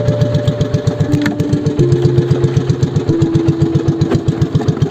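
Small outrigger boat's engine running steadily, a rapid even thumping of about seven beats a second.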